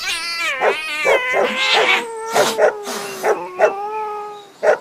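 Animal cries from a dog chasing cats: one long wail that wavers at first and then slowly falls in pitch, broken by short sharp yelps.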